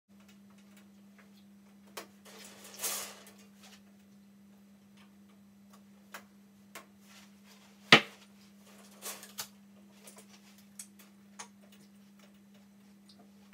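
Wire grid panels and plastic connectors of a C&C cage being handled and fitted together: scattered clicks and light clatter, the sharpest click about eight seconds in, with a few brushing swishes. A steady low hum runs underneath.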